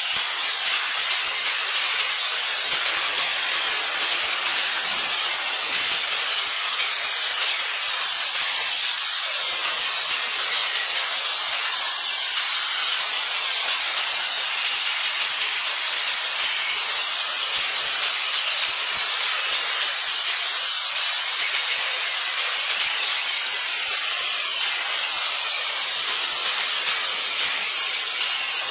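A steady, loud hiss that doesn't let up, with most of its sound high and bright and little low rumble.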